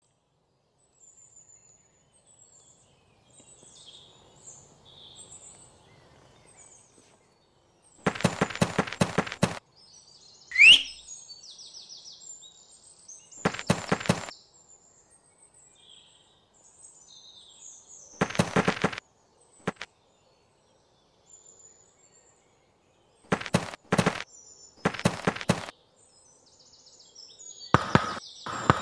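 Cartoon sound effects: faint birds chirping throughout, with several one-second bursts of quick footsteps. About ten seconds in a sharp rising whistle is the loudest sound.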